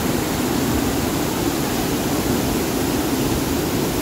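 Waterfall: a heavy flow of white water pouring down onto rocks, a steady rushing noise that holds even without breaks.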